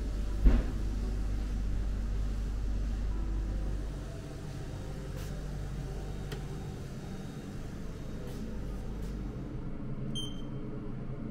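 Steady low room hum with a single thump about half a second in. Near the end comes a short electronic beep as a button on a massage chair's remote control is pressed.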